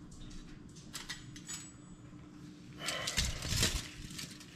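Aluminium foil crinkling and rustling with soft knocks as hands arrange bell pepper and onion slices on it; faint clicks at first, louder for about a second and a half near the end.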